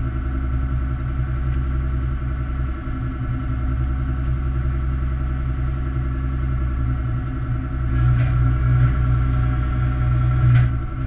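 Fishing boat's engine and deck machinery running steadily, a deep hum with a faint higher whine. About eight seconds in it grows louder, while the net of fish is hoisted, and a couple of sharp knocks sound near the end.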